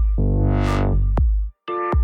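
Electronic background music: heavy bass-drum hits and a synthesizer, with a noisy riser swelling and falling away about half a second in.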